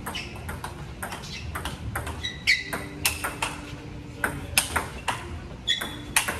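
Table tennis rally: the ball clicking sharply off the paddles and bouncing on the table in a quick back-and-forth. A couple of brief high squeaks come in between the clicks.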